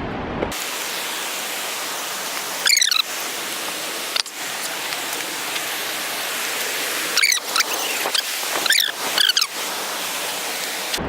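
Steady loud rush of a big waterfall close by. Four short, high, sliding squeals sound over it, near 3 s and three more between about 7 and 9.5 s.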